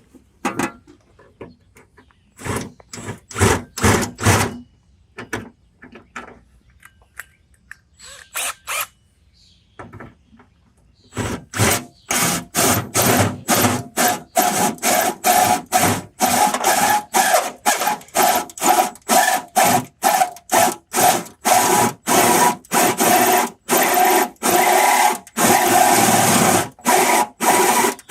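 Power drill run in short trigger bursts: a few scattered ones at first, then from about eleven seconds in a steady string of bursts, roughly two a second.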